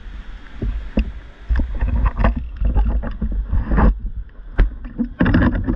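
Handling noise from spearfishing gear being tied onto a bicycle: irregular knocks, clicks and rubbing right at the camera over a low rumble, with louder bursts of scraping shortly before the middle and near the end.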